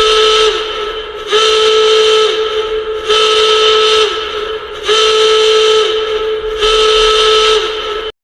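Alarm sound: five loud, horn-like blasts on one steady pitch, each about a second long with the pitch sagging slightly at its end, repeating about every two seconds. It stops abruptly near the end.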